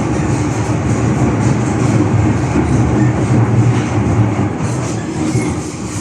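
MTR M-train electric multiple unit running between stations, heard from inside the carriage: a steady rumble of wheels on rail with a low motor hum, easing off slightly near the end.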